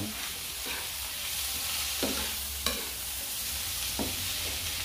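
Beef sizzling as it is sautéed in a nonstick frying pan, with a metal spatula stirring it and scraping and tapping against the pan about four times.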